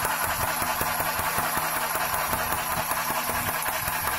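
Gizmobaba GB202 handheld sewing machine running and stitching through cloth: a steady motor whir with a fast, even ticking of the needle. With its needle screw tightened, the stitches are coming out even.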